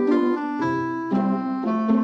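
Background piano music, with new notes or chords struck about twice a second.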